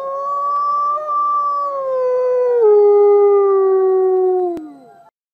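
A wolf howling: one long howl that rises at first, holds, drops a step in pitch about two-thirds of the way through, then slides down and fades near the end.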